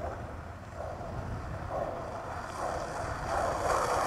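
Skateboard wheels rolling on rough asphalt, a steady rolling noise that grows louder as the board comes closer, with low wind rumble on the microphone.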